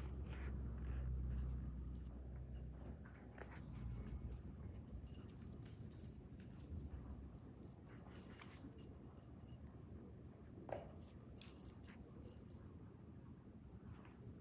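A small bell on a cat teaser toy jingling as the toy is jerked about on its string and batted by a cat, in stretches with a few brief pauses.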